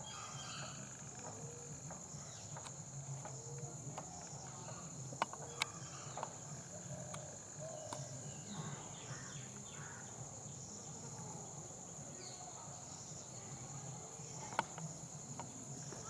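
Steady high-pitched insect drone, with faint short chirps scattered through it. Three sharp clicks stand out, two about five seconds in and one near the end.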